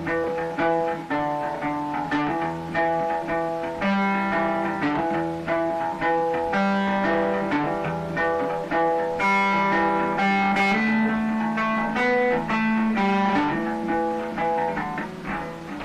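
Background music led by a plucked guitar playing a quick melody.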